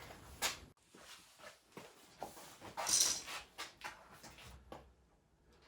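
Faint rustling, light knocks and clicks of someone climbing into an old car's seat, with one brief louder scrape about three seconds in.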